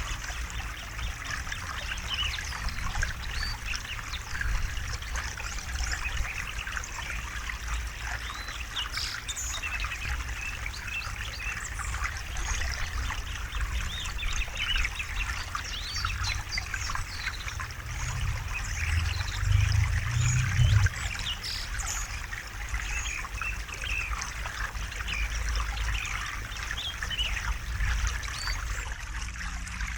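A small river trickling and babbling over stones, with birds chirping throughout. A low rumble in the water swells briefly about two-thirds of the way through.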